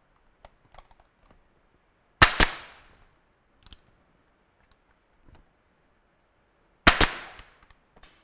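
Pneumatic nail gun firing twice, about four and a half seconds apart, driving nails through door casing into the door frame. Each shot is a sharp double crack with a short tail, and a few faint clicks of handling fall in between.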